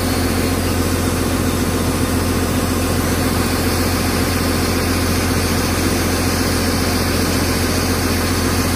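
Hyundai hydraulic excavator's diesel engine idling steadily.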